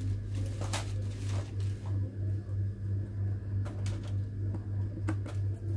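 A low, steady hum that pulses evenly in loudness, with faint rustles and light clicks of hands handling crochet yarn and a hook.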